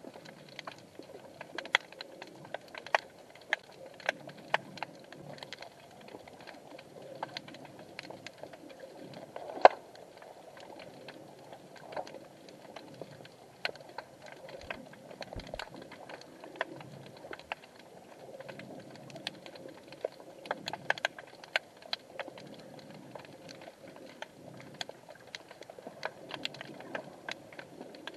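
Underwater sound heard through an action camera's waterproof housing: a faint low wash with scattered sharp clicks and snaps, clustered in places, and one louder snap about ten seconds in.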